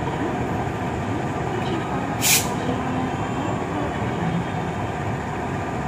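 CC 206 diesel-electric locomotive with its engine running, a steady dense rumble. About two seconds in comes one short, sharp hiss of released air.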